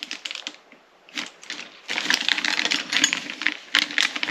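Clear plastic kit-parts bags crinkling and rustling as they are handled, with rapid clicks from the small plastic parts inside. It comes in two spells: a short one at the start and a longer one from about two seconds in, with a quieter stretch between.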